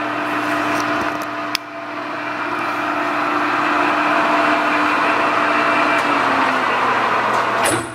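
Kingston HJ-1700 geared-head engine lathe running under power, its spindle and chuck turning with a steady hum and gear noise. There is a single click about one and a half seconds in, after which the running noise grows gradually louder. The sound drops off sharply just before the end.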